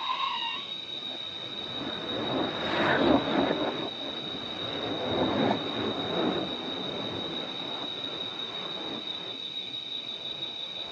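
Insects droning in one steady, high-pitched tone, with two louder swells of rushing noise, about two seconds in and again about five seconds in.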